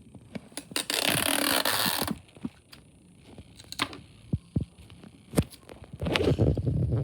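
Sticky tape pulled off the roll in one long rasping strip for about a second, followed by scattered taps and rustling of paper being handled and taped.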